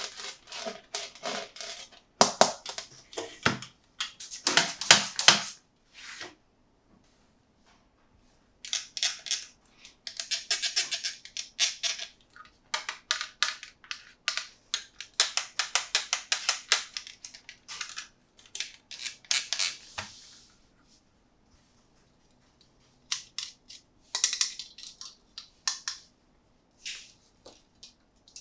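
Toy packaging being handled and opened by hand: bursts of rapid crackling and clicking of plastic and cardboard, broken by short pauses.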